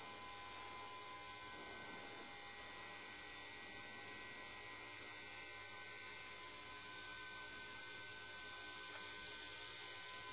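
Faint steady sizzling of fine gas bubbles in a powered Moe-Joe cell, stainless steel cylinders in a glass jar of water, over a steady electrical hum; the hiss grows a little louder near the end. The maker takes the sizzling as the sign of very highly charged water.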